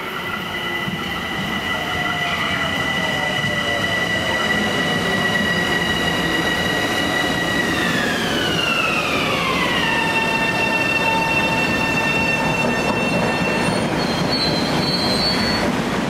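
Metro-North stainless-steel electric commuter train pulling into the station: rolling rumble with a multi-tone electric motor whine that holds steady, then falls in pitch about halfway through as the train brakes, fading out a few seconds later with a short high squeal as it comes to a stop.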